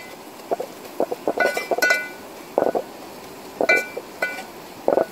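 Steel ladle stirring and scraping fried onions and spices in an aluminium pot, knocking against the pot's side four times with short, ringing clinks.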